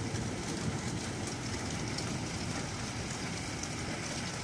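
Heavy rain falling steadily, with faint scattered taps and a low rumble underneath.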